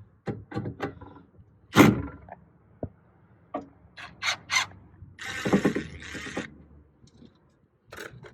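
Clicks and knocks from hand and tool work inside a Lexus IS300 car door as a part is worked loose: a quick run of clicks, one loud knock about two seconds in, a few more clicks, then a scraping rustle lasting about a second.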